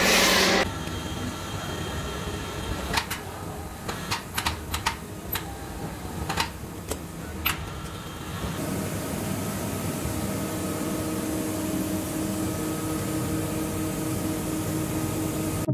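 Steady machine hum of a CNC machining center. A louder noisy running sound cuts off about half a second in. About ten sharp clicks come between roughly three and seven seconds in, and the hum settles onto different steady tones a little past halfway.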